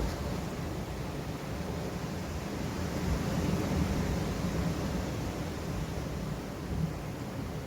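Sea waves washing on a rocky shore, with wind rumbling on the microphone: a steady low rush of noise.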